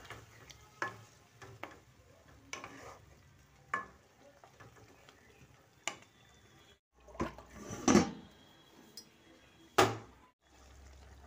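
Metal spoon knocking and scraping against a cooking pan while a potato curry is stirred: scattered clinks, with a few louder clatters in the second half.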